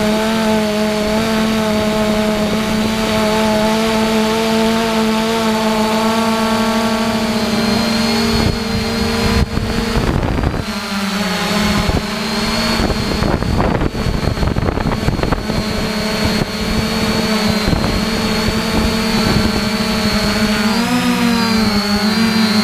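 Quadcopter drone's motors and propellers humming steadily, heard from the drone's own microphone. Wind rushes over the microphone for several seconds in the middle, and near the end the pitch bends up and down as the motors change speed.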